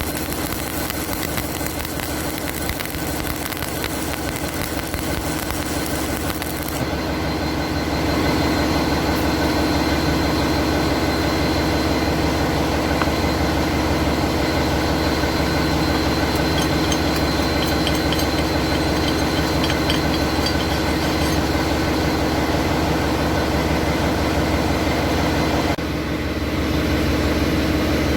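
Arc welding a horizontal joint: a steady crackling hiss over a low machine hum. It gets louder about a quarter of the way in and dips briefly near the end.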